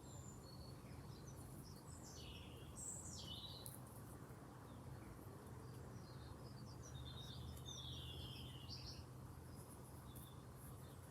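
Faint birds chirping and calling now and then over a steady low background hum.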